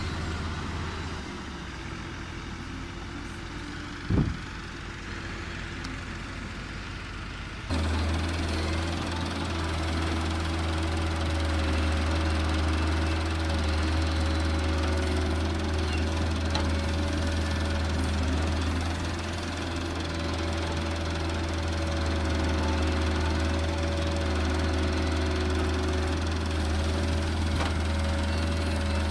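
Massey Ferguson 385 diesel tractor engine running while it pulls a trolley, then, from about eight seconds in, a steady deep diesel hum as the tractor stands with an excavator working alongside it. A single short thump about four seconds in.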